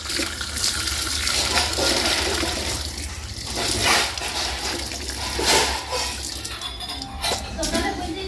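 Water running from a wall tap over hands being washed and splashing onto a concrete floor, with a few louder splashes along the way.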